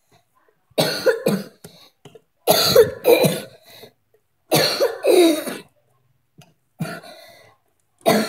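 A girl coughing repeatedly in five short bouts a second or two apart, some of them double coughs. It is a sick cough: she is unwell.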